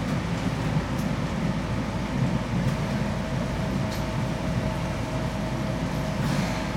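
Seibu 2000 series electric train heard from inside the cab as it runs along a station platform: a steady low rumble, with a faint steady tone joining about two and a half seconds in.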